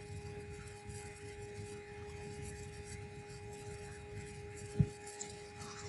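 Faint steady background hum and hiss holding a few thin steady tones, with one short low thump about three-quarters of the way through.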